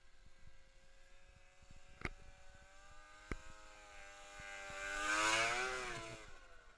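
Snowmobile engine approaching and passing close by. Its pitch rises as it nears, it is loudest about five seconds in, and then its pitch drops and it fades as it goes past. Two sharp clicks come earlier, about two and three seconds in.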